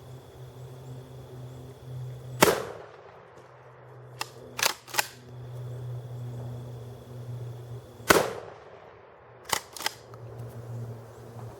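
Two 12-gauge blasts from a Savage/Stevens 320 pump shotgun, about six seconds apart. Each is followed a second or two later by two or three sharp clacks of the pump action being racked. A steady low hum runs underneath.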